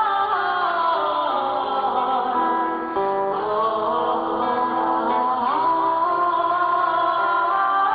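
A woman singing a slow lullaby with acoustic guitar accompaniment, holding and sliding between long notes.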